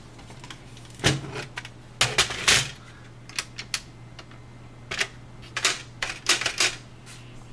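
Irregular sharp clicks and taps, some in quick clusters, as small metal and plastic parts of a PS3 optical drive are handled and its cover is taken off, over a steady low hum.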